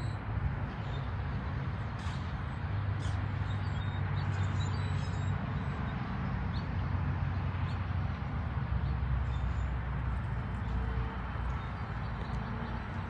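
Outdoor background of a steady low engine hum with a wash of noise over it, and short high bird chirps scattered through.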